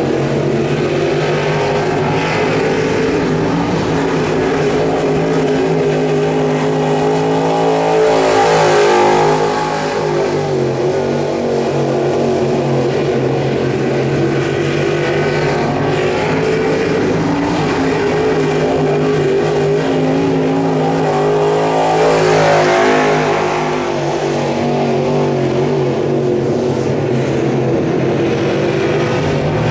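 Dirt late model race car with a crate V8 engine running at speed on a qualifying lap. The engine is heard throughout and swells as the car passes closest, about 8 seconds in and again about 22 seconds in.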